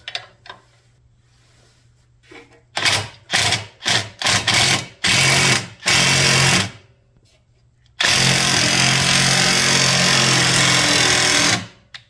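Cordless impact wrench driving the forcing screw of a two-jaw gear puller to pull a wood chipper's cutting wheel off its shaft: several short trigger bursts, then one long run of about four seconds that stops sharply.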